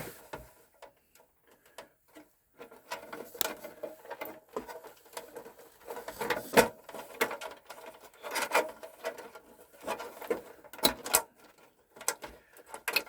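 Irregular clicks, knocks and rattles of computer parts being handled while a Tandy 2000 is taken apart, sparse at first and busier after a couple of seconds.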